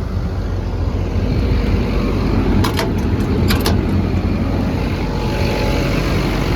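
Cummins diesel engine of an XCMG XE210CU excavator running steadily, getting a little louder about a second in, with a few brief sharp clicks near the middle. It sounds to be running excellent.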